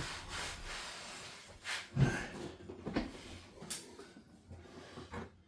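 Workbench handling noises: a rustle, then a few light knocks and clicks of parts or tools being moved, the loudest about two seconds in.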